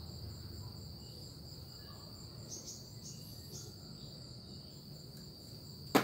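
Crickets trilling steadily in the background, a thin high continuous tone with a few short chirps about halfway through. A single sharp knock near the end.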